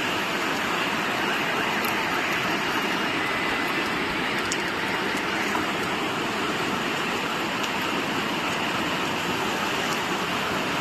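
Steady rush of heavy rain and flowing floodwater, an even hiss that holds at one level.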